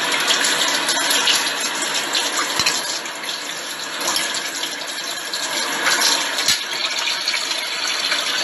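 Steady rushing noise of a running tap in a commercial kitchen. A few light clicks of metal tongs on the plates come about two and a half, four and six and a half seconds in.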